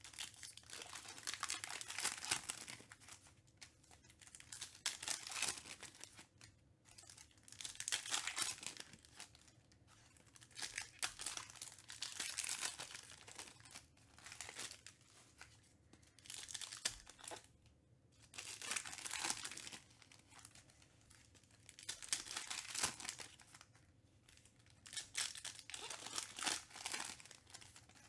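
Crinkling of foil trading-card pack wrappers and plastic as basketball cards are handled and sorted by hand, coming in swells every three to four seconds.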